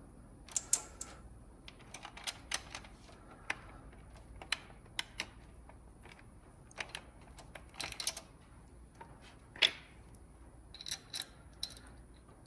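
Irregular sharp metallic clicks and clinks, scattered one or two at a time, as a Ford Coyote V8's timing chain and hand tools are handled while the chain is worked off its sprockets.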